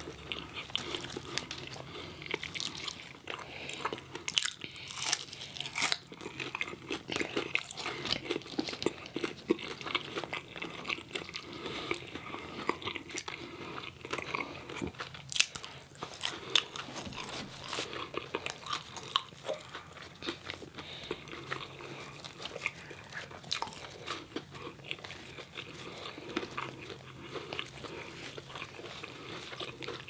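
Close-miked eating sounds of fried chicken fingers and crinkle-cut fries: continuous crunchy bites and chewing, with frequent sharp crunches.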